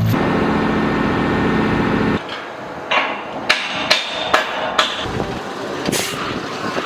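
A steady noise that stops about two seconds in, then a quick run of about six sharp knocks, like blows from a hammer, and one more knock near the end.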